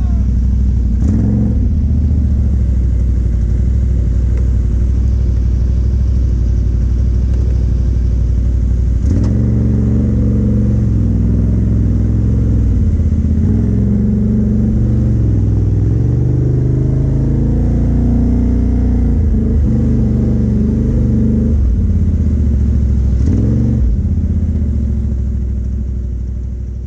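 ATV engine running under way on a trail, its pitch rising and falling as the throttle is worked, fading out near the end.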